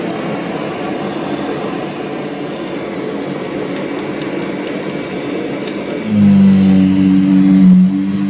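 Kirby Diamond Edition upright vacuum cleaner running steadily. About six seconds in, a louder, steady low hum with a couple of held tones sets in.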